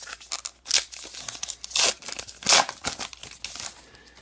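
Foil wrapper of a trading-card pack being torn open and crumpled by hand: several sharp crinkling rips, the loudest about two and a half seconds in.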